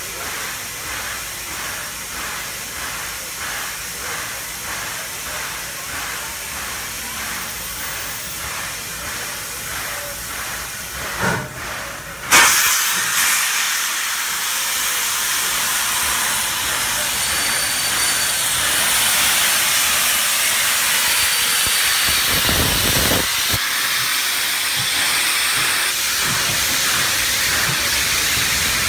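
NSW 30 class 4-6-4 tank steam locomotive 3016 simmering at the platform with a regular pulsing beat. About twelve seconds in, steam blows out with a sudden loud hiss from around its cylinders, and the hiss keeps up steadily as the engine gets under way, with a brief low rumble near the end.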